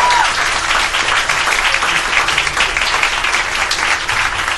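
Audience applauding at the end of a live cabaret song, a dense patter of many hands clapping that cuts off abruptly.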